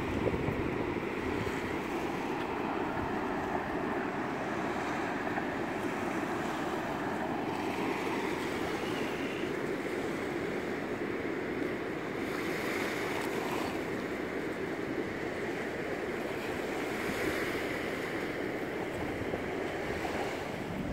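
Low sea surf washing onto a sandy beach: a steady rushing noise that swells a few times as waves break, with wind buffeting the microphone.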